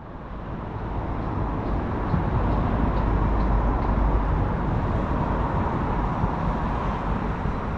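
Steady outdoor background rumble and hiss that fades in over the first second, with a row of faint high ticks in the first half.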